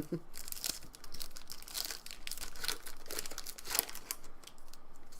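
Trading-card pack wrapper crinkling and tearing as cards are handled, in irregular crackles.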